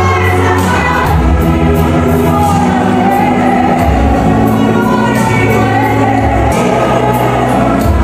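A congregation singing along with live keyboard-led gospel music, with sustained bass notes and a steady beat.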